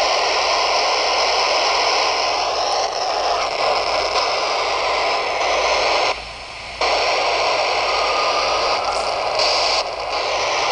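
FM static hiss from a Yaesu VX-5R handheld transceiver's speaker, tuned to the AO-51 satellite downlink with no voice on it. The hiss is steady, with a faint wavering whistle in it, and drops out for about half a second around six seconds in.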